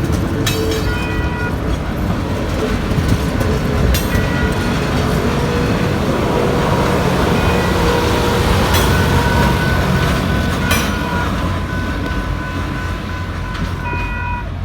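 Passenger train running along the track, heard from inside a coach: a steady rumble and rattle with occasional sharp clicks. Faint thin high whines come and go.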